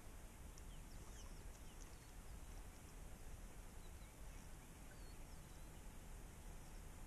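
Near silence: a faint steady low rumble and hiss of open-air ambience, with scattered faint high chirps of distant birds.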